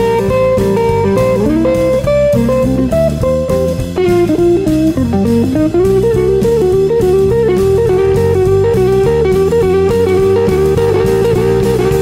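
Background music: a guitar playing a melodic line over a steady drum beat, with a note that bends down and back up about four to six seconds in.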